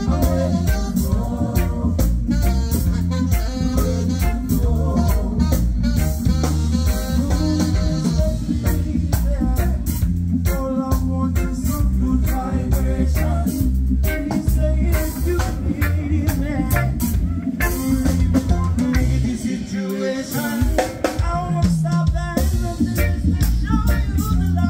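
Live band playing with a steady beat: drum kit, bass, electric guitar and keyboards, with a voice singing over them. The bass drops out briefly about twenty seconds in, then the groove comes back.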